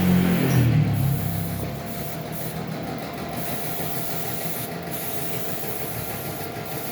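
A small electric motor winding down, its hum falling in pitch over the first second or so and fading out, followed by a steady low hiss.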